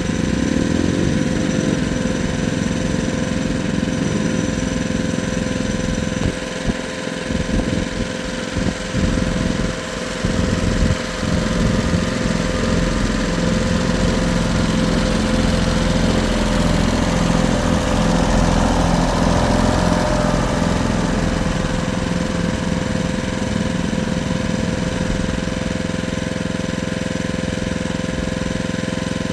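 Engine of a Jansen mini excavator running steadily. About six to eleven seconds in, its sound dips and surges several times, then settles back to a steady run.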